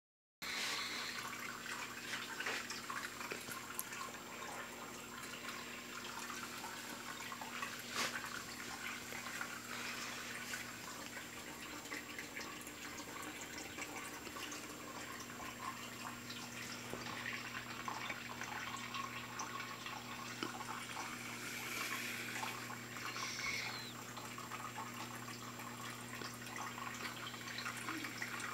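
Aquarium filter outflow pouring into the tank water with a steady trickling and splashing, over a steady low hum.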